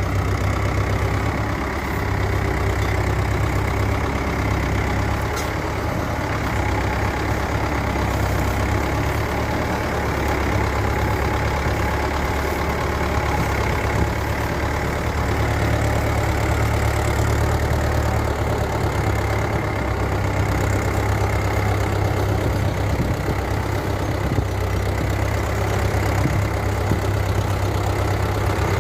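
Diesel engine running steadily with a deep, even rumble.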